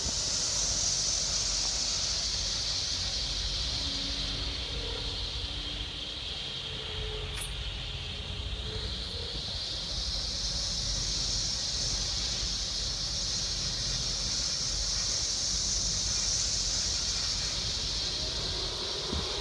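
Storm wind, rumbling on the microphone with a steady high hiss that fades a few seconds in and swells again.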